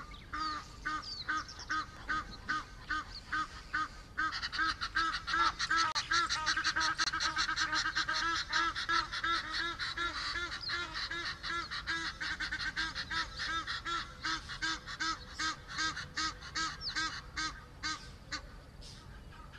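Birds calling in a fast, rhythmic series of harsh, honking notes. The series grows into a dense, louder chorus about four seconds in and thins out again near the end.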